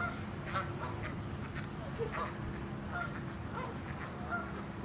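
Ducks calling, with many short, scattered quacks and calls.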